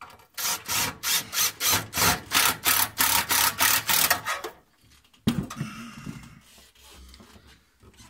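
Cordless impact driver driving a screw through the back of a steel cabinet into the wall, running in a rapid pulsing run of about four a second for about four seconds, then stopping. A single sharp knock follows about a second later.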